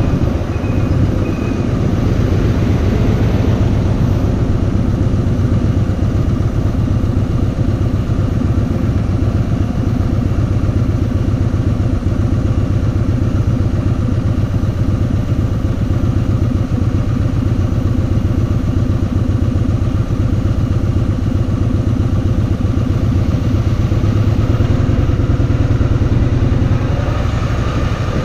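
Kawasaki VN2000's big V-twin engine running steadily as the motorcycle is ridden, with an even, pulsing low exhaust note.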